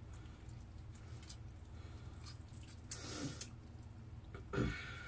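Low steady hum with two short breathy sounds from the cook, one about three seconds in and a shorter one near the end, as a knife works through the joint of a raw chicken leg.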